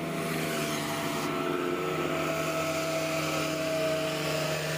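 Mitsubishi Canter dump truck's engine running at a steady, even pitch as the truck drives along, swelling slightly about four seconds in.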